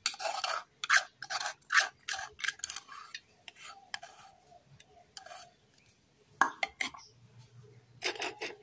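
Metal spoon scraping and clinking against a cup and plate as a thick ground-peanut paste is scooped out: a quick run of short scrapes over the first few seconds, thinning out, then a few sharper clinks near the end.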